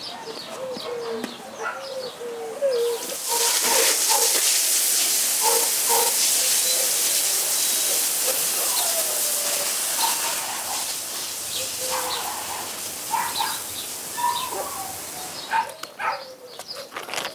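Garden hose spraying water onto a concrete kennel floor: a steady hiss that starts about three seconds in and stops shortly before the end, while birds call. A few light clicks and knocks near the end.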